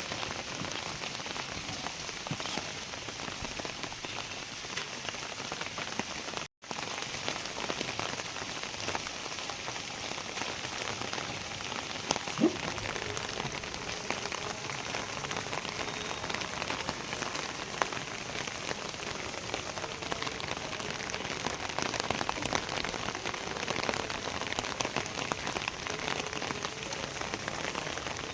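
Steady rain falling, with a dense patter of drops. A single sharp knock comes about twelve seconds in.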